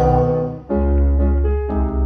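Keyboard music playing sustained chords over a deep bass, with a new chord struck about two thirds of a second in.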